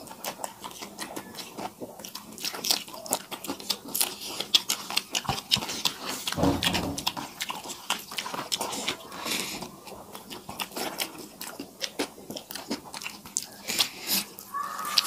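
Two people eating rice and egg curry by hand, chewing and biting close to the microphone, with many sharp wet mouth clicks.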